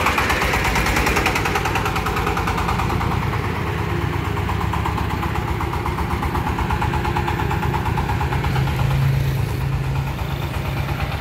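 Engine of a home-built mobile sawmill vehicle running steadily with a fast, even firing beat as it is driven on a road test.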